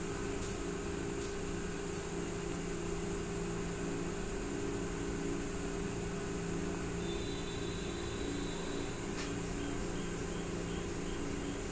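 Steady machine hum made of several held low tones over an even hiss, with a few faint clicks.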